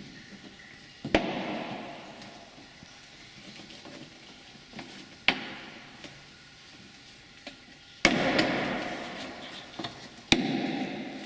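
Plastic retaining clips of a Toyota RAV4's rear wheel arch moulding snapping loose one at a time as the moulding is pulled off by hand. There are four sharp snaps, the first about a second in, each trailing off in a short rustle of the plastic.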